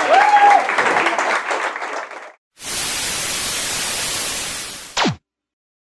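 Audience applause with a short whistle near the start, cut off after about two seconds. After a brief gap comes a steady hiss of static, which ends in a quick downward-sweeping electronic swoosh.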